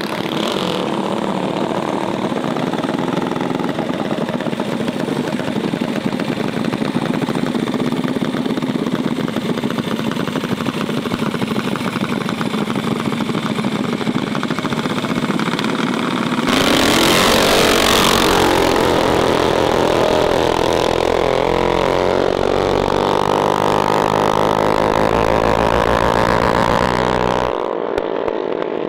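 Mini bike engines running. About sixteen seconds in the sound suddenly gets louder and fuller, and the engine pitch then climbs steadily over several seconds as a bike accelerates.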